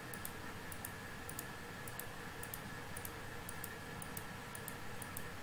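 Computer mouse clicking, light irregular clicks a few times a second, over a faint steady hum.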